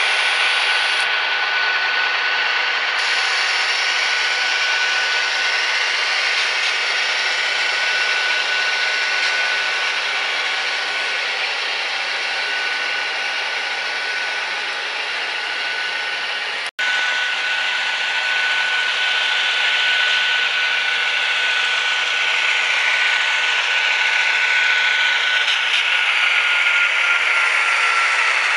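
HO scale model train running on the layout track: a steady high whine from the motor and gearing over the rattle of the wheels on the rails, the whine dropping a little in pitch near the end as the train slows. The sound cuts out for an instant about two-thirds of the way through.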